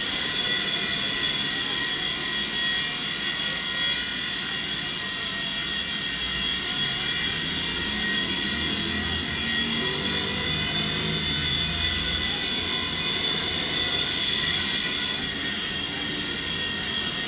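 WL Toys V911 4-channel micro RC helicopter in flight, its small electric motors and rotors giving a steady high-pitched whine.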